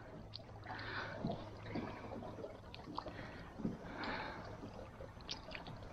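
Faint splashing and dripping of water as a wet hoop-net rope is pulled up hand over hand out of the river, with soft swells every second or so and a few light clicks.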